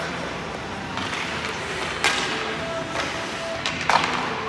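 Two sharp knocks on an indoor ice rink, about two seconds apart, the second louder, over a steady hall background.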